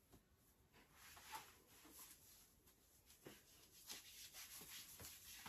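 Near silence with faint, soft rustles of thin mesh fabric being pulled on and adjusted around the body, a few brief swishes scattered throughout.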